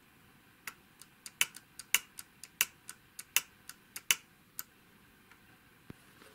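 A quick, uneven run of small sharp clicks and ticks from the metal gear assembly of a vintage avionics compass coupler being handled and turned. The clicks stop after about four and a half seconds.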